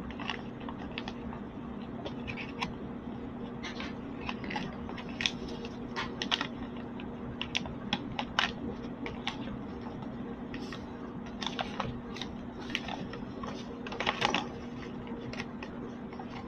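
Sheet of paper being folded and creased by hand: irregular crinkles, rustles and sharp little clicks, with a steady low hum underneath.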